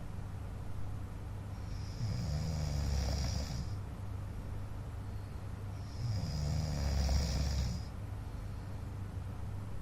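A man snoring in his sleep: two long snores about four seconds apart, each about two seconds long, a low rasp with a breathy hiss.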